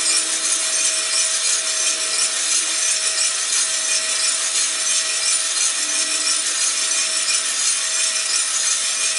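Cormorant CR600 drum coffee roaster running with its burner off: a freshly charged batch of coffee beans tumbles in the rotating drum with a steady rushing rattle, over a faint steady hum from the fan and drum motor.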